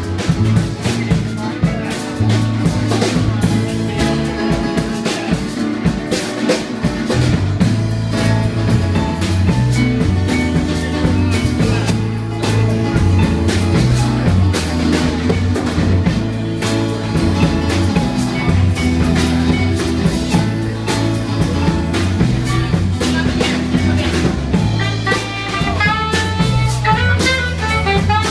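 Live band playing with drum kit and bass guitar, a steady driving beat with rimshots over a moving bass line. A wavering higher melody line comes in near the end.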